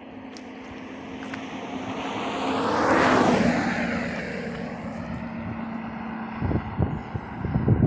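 A vehicle passing by, its sound swelling to a peak about three seconds in, then fading with a falling pitch. A few short thumps come near the end.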